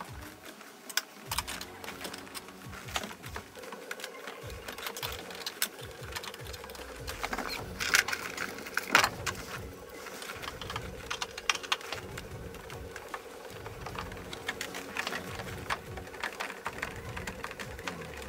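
Clicks, knocks and rustling of hands working under a car's dashboard, unfastening and pulling out the engine control unit, with two louder knocks near the middle. A faint steady hum sets in a few seconds in.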